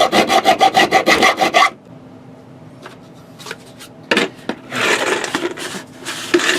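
Power drill driving wood screws further into the wooden box, a fast rhythmic rasping of the screw biting into the wood that stops abruptly after under two seconds. A few light clicks and a stretch of rustling handling noise follow.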